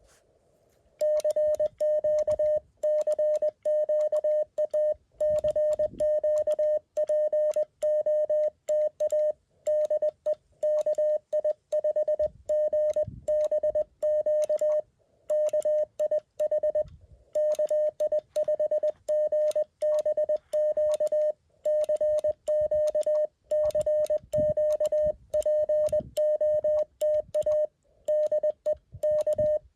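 Morse code sidetone from a Mountain Topper CW transceiver through a small speaker: a single steady tone keyed on and off in quick dots and dashes, starting about a second in, with a few short pauses between groups, as a call is sent on the air.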